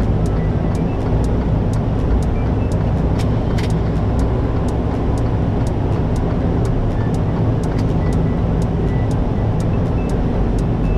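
Semi-truck on the move, heard from inside the cab: a steady low drone of engine and road noise, with faint regular ticks about three a second.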